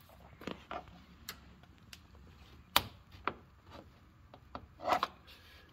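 Irregular clicks and knocks of hands and a plier tool on hard plastic trim as push-pin rivets are worked out of the plastic cover panel over the grille. The sharpest click comes about three seconds in, and a few come together near the end.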